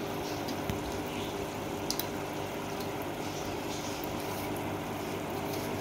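Aquarium water bubbling and trickling steadily, over a steady low hum.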